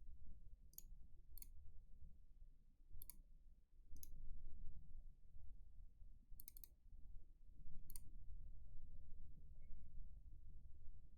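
Computer mouse clicking now and then, about eight short, sharp clicks spaced irregularly, a pair of them quickly together about two-thirds of the way in, as menus and settings are clicked through. A faint low room hum lies under them.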